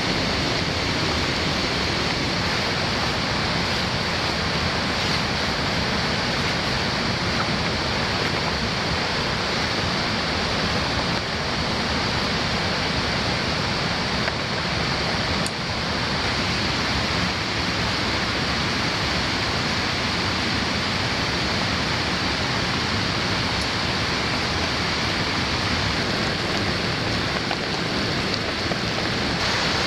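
Steady, even rush of fast-flowing water.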